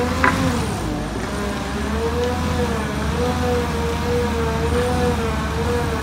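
Cat 308E2 CR mini excavator running with a hydraulic stump-grinder attachment working into a stump: a diesel drone under a whine that rises and falls about once a second. A brief knock just after the start.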